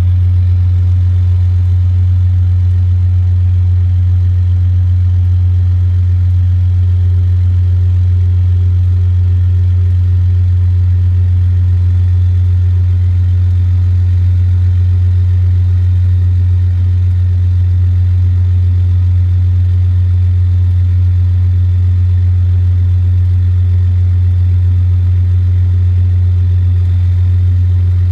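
Truck engine running steadily with its PTO-driven air compressor engaged and pumping up pressure, a loud, even low drone.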